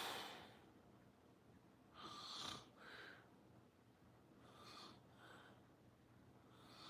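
A sleeper snoring. The tail of a louder snore fades just at the start, then come soft, short, airy breaths in and out, about five of them spread over the following seconds.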